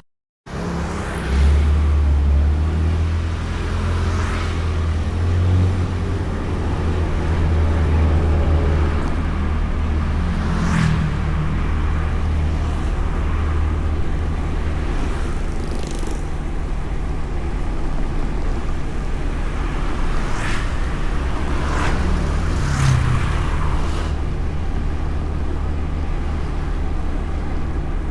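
Honda Beat scooter riding along, heard from a camera mounted on the bike: a steady low engine and road hum, with other vehicles swelling past several times. The sound drops out for a split second at the very start.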